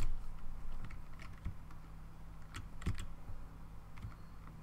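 Computer keyboard keystrokes typed in short, irregular bursts, about a dozen separate clicks over a faint steady low hum.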